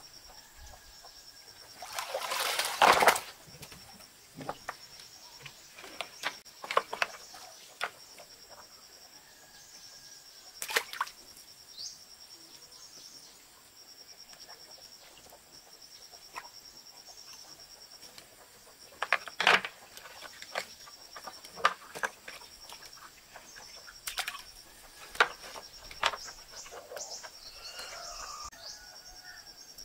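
Water splashing as a wet fishing net is hauled up out of a pond onto a bamboo raft, the loudest sound about two to three seconds in. After it come scattered slaps and knocks as caught fish are worked free of the net on the bamboo poles, over a steady high insect drone.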